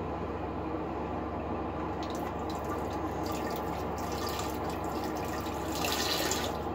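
Faint water trickling and dripping in a toilet, over a steady background hum, with a slightly louder hiss of water near the end.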